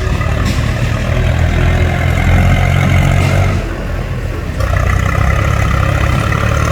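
Heavy diesel engine of a tractor or backhoe running loudly, easing off for about a second near the middle and then picking up again.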